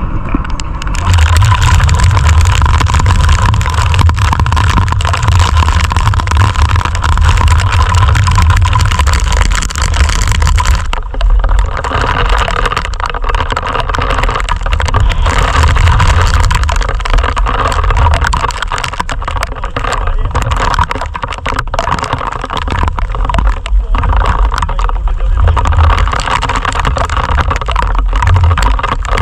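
Strong wind buffeting the microphone, a loud rumbling rush that swells and eases in gusts.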